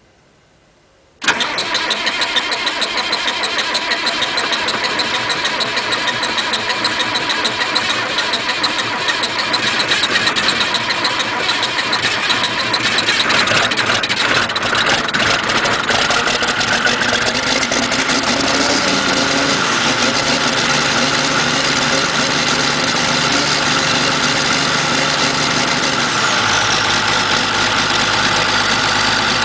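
Case 2294 tractor's six-cylinder turbo diesel starting from cold at about −5 °C: it fires suddenly about a second in and keeps running steadily with diesel clatter. Its note changes twice as it settles, about two-thirds of the way through and again near the end.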